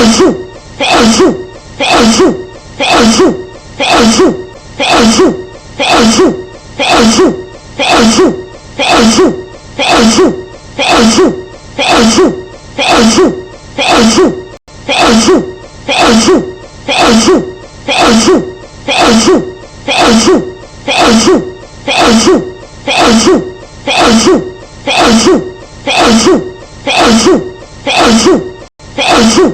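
A woman's sneeze looped over and over, evenly repeating about once a second, each sneeze falling in pitch.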